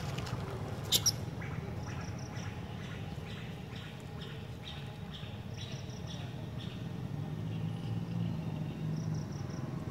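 Short chirping animal calls repeated about twice a second, with a higher, rapid triple chirp now and then, over a steady low hum. Two sharp clicks about a second in.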